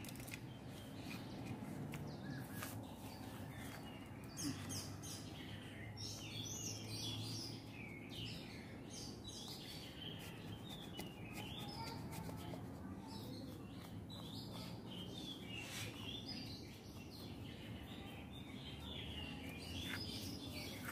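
Birds chirping and calling, many short rising and falling chirps, with a few faint clicks.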